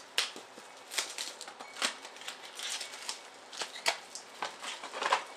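Trading cards and their cardboard box and wrapper being handled: irregular clicks, taps and rustles.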